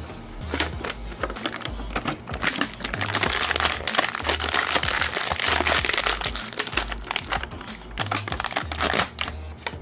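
Clear plastic toy packaging crinkling and crackling as gloved hands handle it and work it loose. It starts about half a second in and stops just before the end, with background music underneath.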